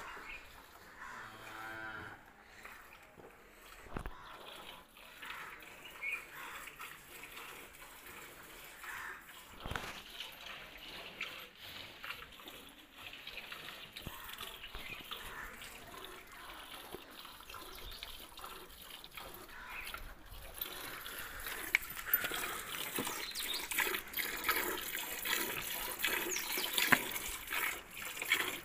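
A cow moos once about two seconds in. A cow is being milked by hand, with streams of milk hissing into a steel bucket, growing louder over the last several seconds.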